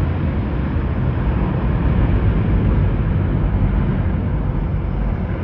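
Boeing 777X's two GE9X turbofan engines at high thrust as the jet climbs steeply away, a steady low rumble.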